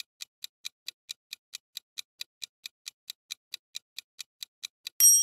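Countdown timer sound effect: a steady clock ticking, about four and a half ticks a second, ending near the end with a louder bell-like ding that rings on briefly.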